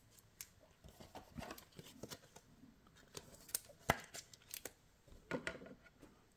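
Faint scattered clicks, taps and light rustling as basketball trading cards are shuffled in the hands and laid down on a desk playmat, with one sharper tap about four seconds in.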